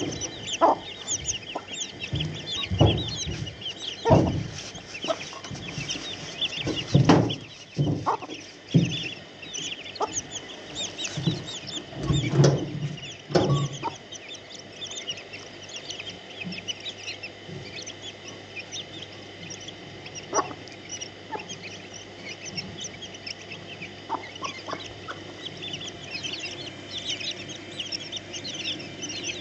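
A brood of chicks cheeping continuously in high, rapid peeps, while the mother hen gives low, short clucks. The clucks come often through the first half and only now and then later.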